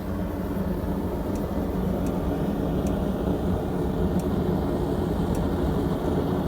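Diamondback Ironworks propane forge burner running with a steady low rumble on first fire-up, not firing correctly: the gas orifice is off-centre in the burner pipe, so it is not burning with a neutral flame. Faint light ticks come about once a second over it.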